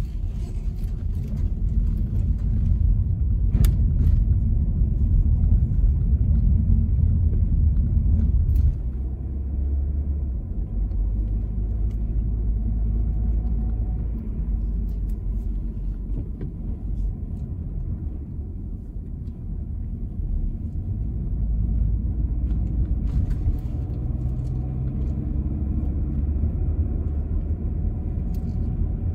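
Car driving on a narrow road, heard from inside the cabin: a steady low rumble of engine and tyres, louder for the first eight seconds or so, then easing off, with a few faint clicks.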